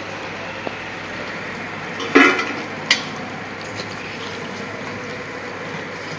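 Raw-banana koftas sizzling in hot oil in a kadai, a steady frying hiss. A loud metallic clatter comes about two seconds in, with a sharp click just after.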